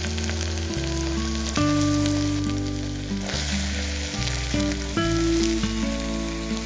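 Onions and ginger-garlic paste frying in hot oil in a pressure cooker, a steady sizzle with small crackles, as diced beetroot is tipped in. Instrumental background music with sustained bass notes plays over it.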